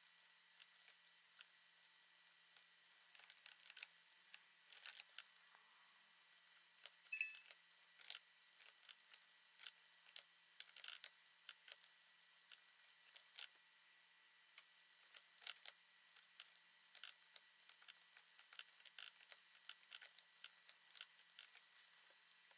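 Faint, scattered clicks of a computer mouse and keyboard during CAD drafting, some in quick little clusters, with a brief high tone about seven seconds in.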